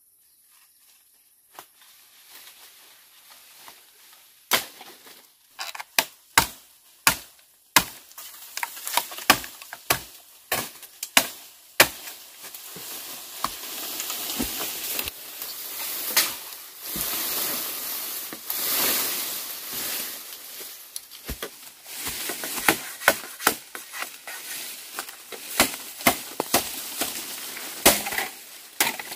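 Machete chopping at bamboo stems and brush: a long series of sharp strikes, starting about four seconds in, with dry leaves and branches rustling between them, heaviest in the middle.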